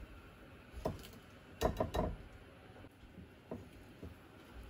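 A utensil clinking and knocking against a mixing bowl while cake batter is stirred gently. The knocks are scattered, with a louder cluster of several about two seconds in.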